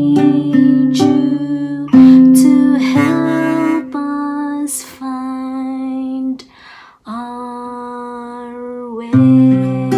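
A woman singing a slow hymn to acoustic guitar, holding long notes. She takes a breath between phrases about six and a half seconds in, and the next long note slides down at its end.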